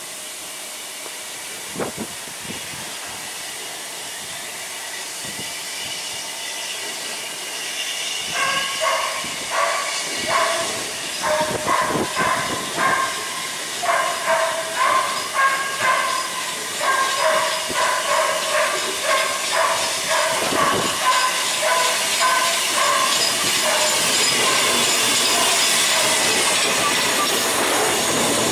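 Steam-hauled train passing: a steady hiss at first, then from about eight seconds in a rhythmic clatter of wheels with a pulsing squeal, about three beats every two seconds, growing louder toward the end.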